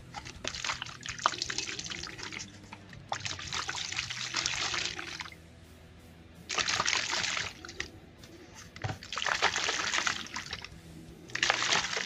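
Water sloshing inside a plastic shaker bottle shaken in about five bursts of a second or two each, with short pauses between them, to dissolve L-arginine powder.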